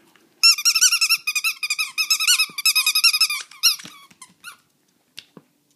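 A plush dog toy's squeaker squeaked over and over in a fast run of high squeaks as a small dog chews on it, starting about half a second in and lasting about three seconds, then a few single squeaks.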